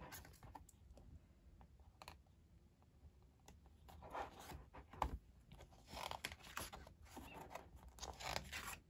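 Faint paper handling: the pages of a K-pop album's photo book being turned, with scattered soft clicks and rustles.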